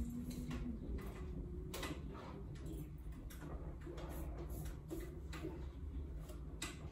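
Classroom room tone: scattered light clicks and taps over a steady low rumble while students work at their desks.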